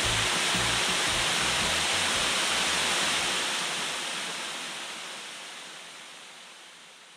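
Steady rushing of water with low bass notes beneath it; the bass stops about three seconds in and the rushing fades out gradually.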